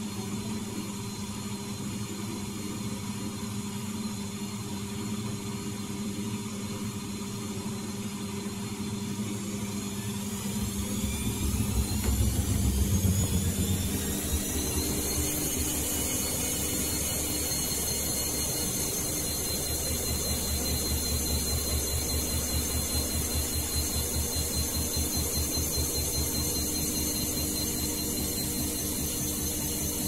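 Siemens WD14H420 washer-dryer running, its drum motor winding up into a spin: a whine rises in pitch for several seconds and then holds at a steady high pitch over a low rumble, which peaks as the drum speeds up and then settles into a faint regular pulsing.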